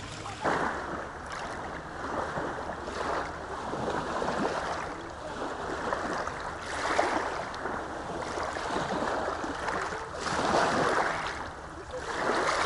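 Small waves washing in over a pebble shore of the Volga, one surge every second or two.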